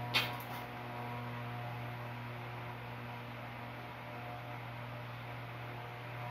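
Steady low electrical hum over a faint hiss, with a single short knock just after the start.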